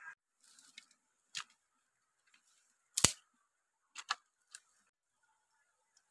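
Dry wooden sticks knocking and clacking together as firewood is handled and laid, about six short sharp knocks, unevenly spaced, the loudest about three seconds in.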